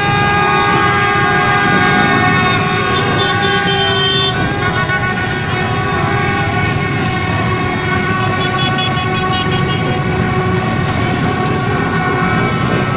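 Many vehicle horns honking at once in a continuous din of overlapping steady tones at different pitches over traffic noise: honking in celebration of a victory.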